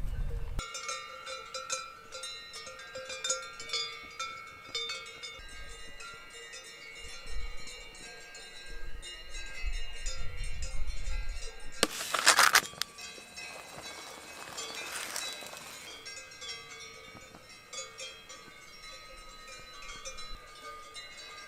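Cowbells ringing irregularly, several bells clanking at once, as from grazing cattle. About twelve seconds in a brief, loud rush of noise covers them.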